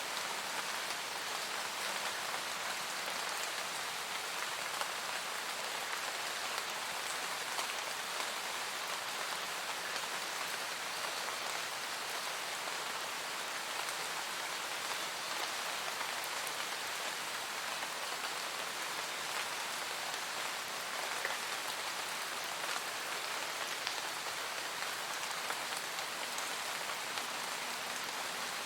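Steady, even rain falling, with scattered individual drops pattering.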